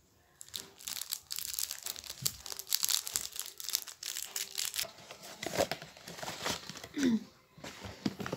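Thin clear plastic packaging crinkling and rustling in the hands as a protective sleeve is worked off a new makeup brush. The crackling is dense for the first few seconds, then lighter.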